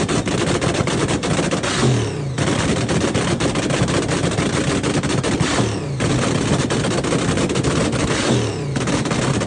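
Drag-racing car's engine running with open exhaust, a loud, harsh, rapid crackle like machine-gun fire. The note sags and then snaps back about three times.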